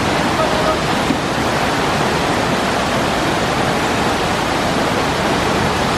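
Steady rush of falling and churning water from a river rapids raft ride's waterfalls and rapids.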